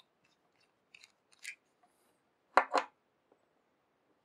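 Small hard parts being handled at close range: a few faint clicks, then two short sharp clacks in quick succession about two and a half seconds in.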